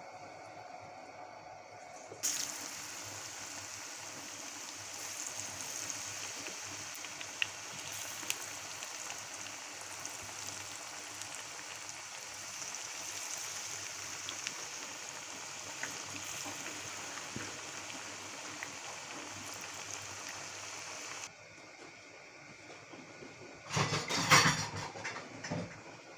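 Batter-coated potato slices deep-frying in hot oil: a steady sizzle with scattered small pops, starting suddenly about two seconds in and cutting off a few seconds before the end. Near the end comes a brief, much louder burst of noise.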